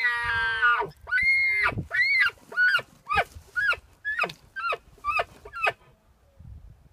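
Elk bugle: a long, high whistle drops in pitch and breaks off. It is followed by a string of about nine short, grunting chuckles.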